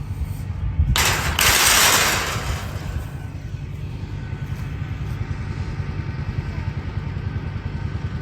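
Kubota M7060 tractor's diesel engine running steadily, with a loud crash of noise about a second in that lasts about a second and a half.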